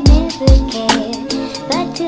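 Upbeat outro music with a steady beat: heavy bass drum hits and fast hi-hat ticks under held synth notes.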